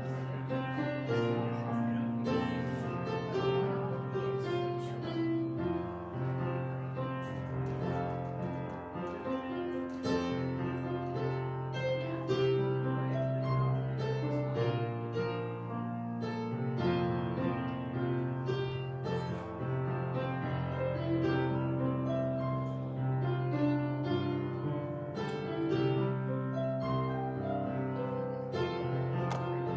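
Instrumental prelude music led by piano, with held chords over a steady bass line.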